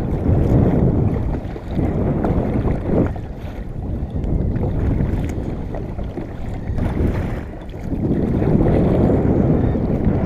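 Wind buffeting the microphone on a kayak at sea, a rough low rumble that swells and eases every few seconds, over the wash of water around the hull.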